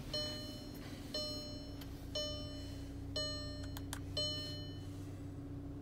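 Audi Q3's cabin warning chime sounding five times, about once a second, and stopping about four seconds in, over a steady low hum.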